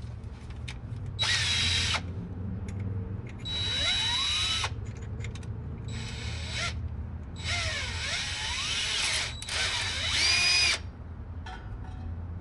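Electric power drill run in five short bursts of one to two seconds, the motor pitch rising and falling as the trigger is squeezed and eased, while drilling into the truck's rear suspension bracket area without enough clearance.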